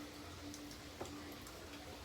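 Faint low buzzing of a bee that comes and goes in short spells, with one soft click about a second in.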